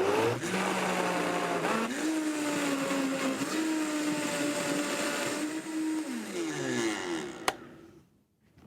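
Countertop blender running, blending a thick chickpea soup. Its motor pitch steps up about two seconds in, then winds down with a falling pitch near the end, followed by a single sharp click.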